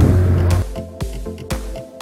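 A boat's engine running with a steady low hum for about half a second, then cut to electronic background music with a beat of about two strokes a second.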